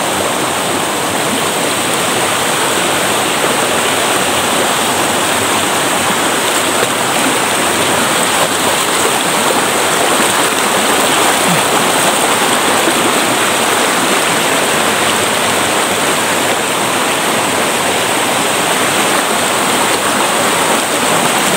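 Shallow rocky stream rushing over boulders and small cascades: a loud, steady noise of running water.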